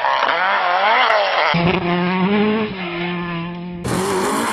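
Ford Escort rally car engine at high revs as the car passes at speed. Its pitch sweeps up and down, and there are sudden cuts between shots about a second and a half in and again near the end.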